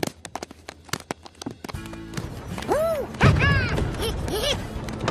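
Cartoon soundtrack: a quick run of sharp taps and clicks, then music comes in with several swooping tones that rise and fall back. Heavy low thuds join about three seconds in.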